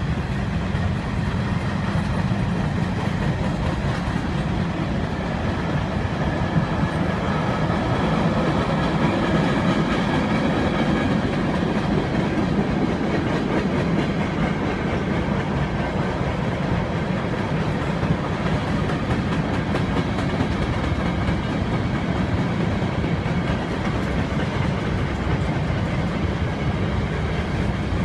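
Freight cars (covered hoppers, boxcars and wrapped-lumber cars) rolling past on the track: a steady, continuous rumble of steel wheels on rails.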